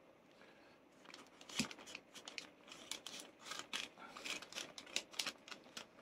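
Crisp rustling and crinkling of a small card packet being opened and handled, a run of short dry paper sounds starting about a second in.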